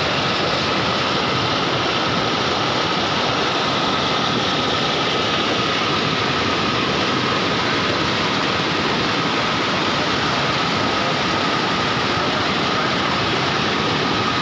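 Muddy floodwater rushing and churning in a swollen stream as it pours over a road edge: a steady, loud rush of water.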